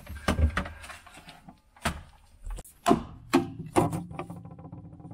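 Plastic interior parts of a GE French door refrigerator knocking and clacking as they are handled and pulled out, several sharp knocks over a few seconds.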